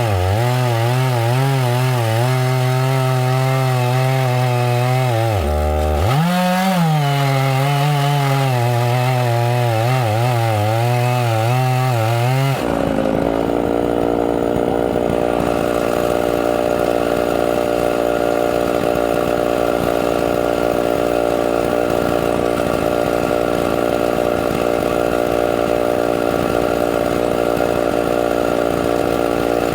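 Chainsaw running and cutting, its engine pitch wavering under load, with a quick drop and recovery about six seconds in. About halfway through, the sound changes abruptly to a steadier, even engine drone.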